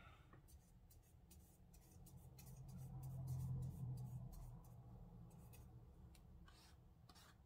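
Faint scratching and light clicking of a flat watercolor brush scrubbing and tapping in the wells of a plastic watercolor pan tray, mixing paint with plenty of water. A low hum swells for a couple of seconds in the middle.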